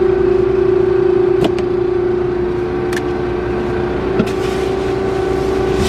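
Combine harvester running steadily with a constant droning hum, with a few faint clicks or knocks over it.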